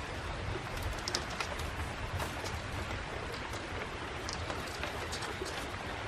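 Steady rush of running water with scattered light clicks of thin bamboo strips being bent and laid over each other by hand.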